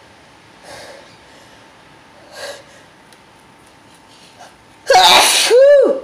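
A man sneezing once, hard, about five seconds in: a loud noisy blast ending in a voiced cry that rises and falls in pitch. Two short, faint breaths come before it.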